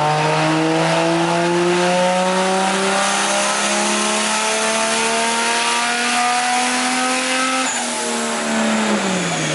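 Turbocharged 1JZ inline-six in a Lexus SC300 making a pull on a chassis dyno: the engine note climbs steadily for about seven and a half seconds, then the throttle is lifted and the revs fall away near the end.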